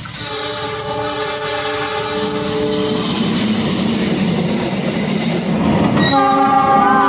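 Argo Wilis passenger train's locomotive horn sounding a long multi-tone blast, then a second blast about six seconds in, over the growing rumble of the train approaching and getting louder.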